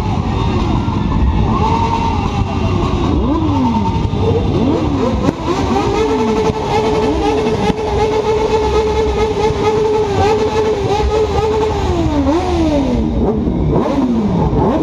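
Motorcycle engines revving hard: several quick throttle blips that rise and fall, then one engine held at high revs for about six seconds before dropping back, and more blips near the end.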